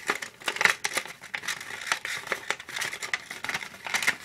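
Folded paper fortune teller handled close to the microphone: irregular paper crinkling and rustling with sharp crackles.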